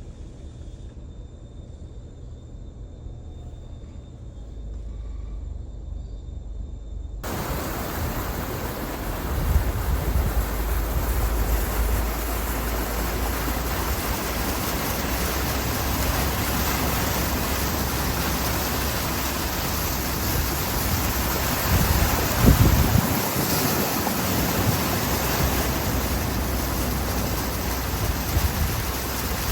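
A car's low road rumble. About seven seconds in, a loud, steady rushing noise starts abruptly and covers it, with one brief low thump later on.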